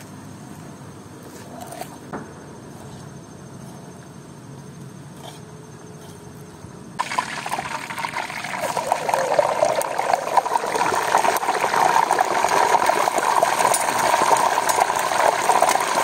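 Hot oil in a wok sizzling and crackling as a whole chicken is lowered in to deep-fry, starting suddenly about seven seconds in and growing louder. Before that, a couple of cleaver chops on a wooden board.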